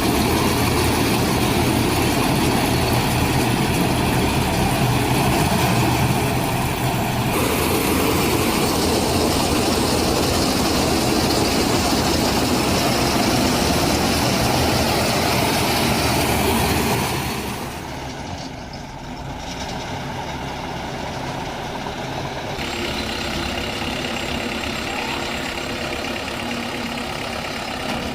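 Mini combine harvester's engine running steadily with the dense clatter of its machinery. The sound changes abruptly a few times and drops quieter about two-thirds of the way through.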